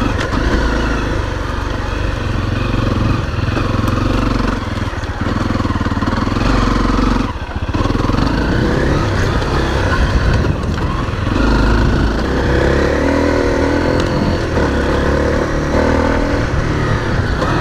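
Honda CRF250L's single-cylinder four-stroke engine running under way on a dirt trail, its pitch rising and falling with the throttle, with a brief drop about seven seconds in.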